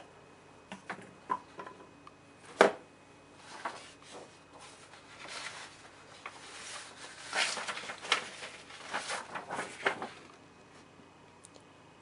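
Handling noise on a workbench: a few light clicks, one sharp click about two and a half seconds in, then rustling with scattered light knocks until near the end.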